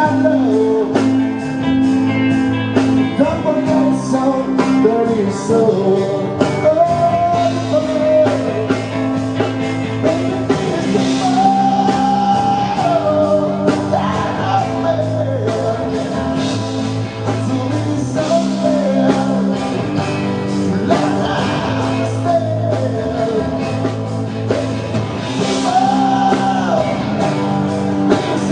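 Rock band playing live: a singer's voice over guitar, bass and a steady drum beat.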